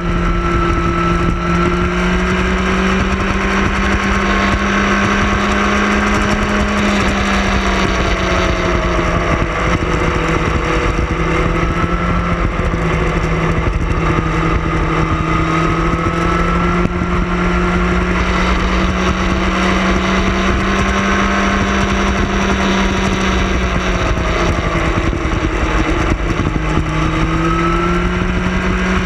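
Sport motorcycle engine running at a steady pace, its pitch sagging and then climbing back every several seconds as the throttle eases and opens, over a constant wind rush.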